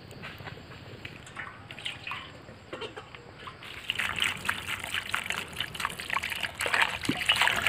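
Water poured in a thin stream from a plastic jerrycan into a steel bowl of vegetables, splashing and trickling as a hand rubs them clean. The pouring starts about four seconds in and grows louder near the end.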